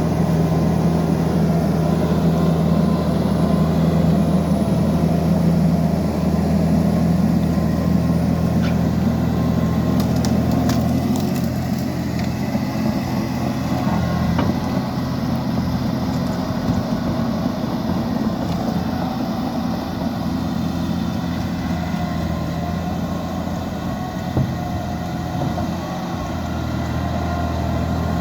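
Heavy diesel engine of a Liebherr 754 crawler dozer running steadily, its low drone thinning for a stretch in the middle and filling out again near the end, with a few brief clicks along the way.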